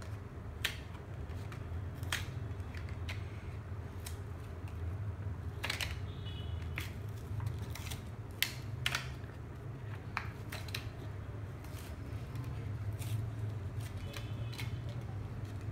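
Hot Wheels toy car blister pack of cardboard and plastic being torn and pried open by hand: scattered sharp clicks and crackles, over a steady low hum.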